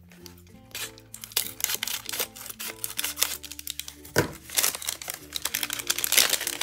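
Crinkling and rustling of a foil blind-bag wrapper as it is cut open with scissors and handled, in many short crackles with a sharper one about four seconds in. Soft background music plays underneath.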